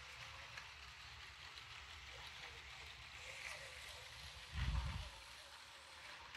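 Motorised LEGO train running on plastic track: a faint, steady whir from the battery-powered locomotive and its wheels rolling. A brief low thump about four and a half seconds in.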